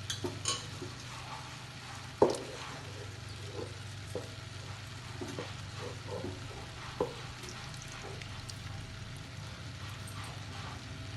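Chicken gravy being poured and spooned over rice in a cooking pot, with a few light knocks of the spoon against the pot, the sharpest about two seconds in and again about seven seconds in, over a steady low hum.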